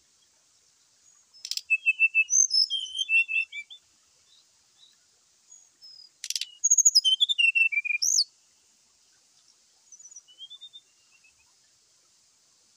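Brown-chested jungle flycatcher giving its agitated 'fighting' song: two loud phrases of rapid, high chirping notes, each opened by a sharp click, then a shorter, softer phrase near the end.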